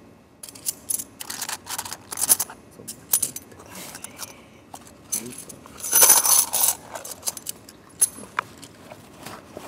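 Wedding arras coins clinking metal on metal as they are passed from hand to hand: a run of quick, sharp clinks with a bright ring, busiest about six seconds in.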